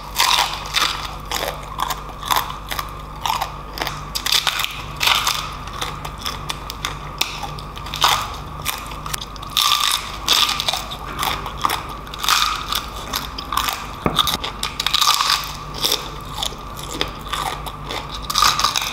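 Crispy deep-fried pork knuckle skin crunching and crackling under a person's bites and chewing, in many irregular crunches.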